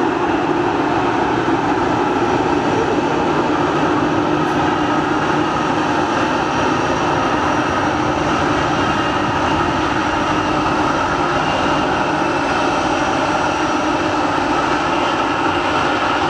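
Airbus A320neo's Pratt & Whitney PW1100G geared turbofans running steadily at low taxi power: an even jet noise with faint steady engine tones and no change in thrust.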